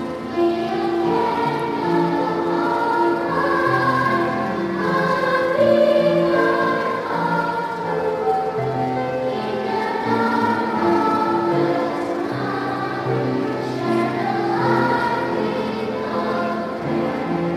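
A choir singing a Christian hymn, several voices holding long sustained notes.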